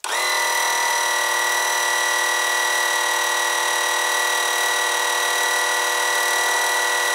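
Small 12-volt electric oil pump switching on and running with a steady high whine as it pushes thick gear oil into the truck's axle. With a larger hose now fitted, it is pumping better and not struggling as hard.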